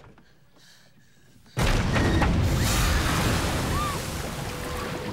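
A small aluminium boat capsizing in a sudden, loud crash of water about a second and a half in: a heavy splash with a boom, then churning water that slowly dies down.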